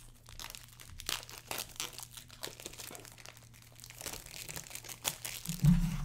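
Clear plastic shrink-wrap being peeled and crumpled off a cardboard product box: a steady run of irregular crinkles and crackles. A short, louder low thump comes near the end.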